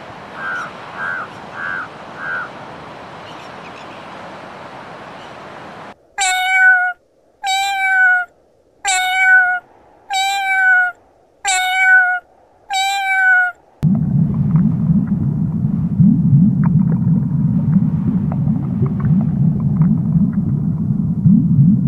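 Crows give four short caws over a steady hiss. Then a domestic cat meows loudly six times, about one meow every 1.2 seconds. A steady low rumble fills the last eight seconds or so.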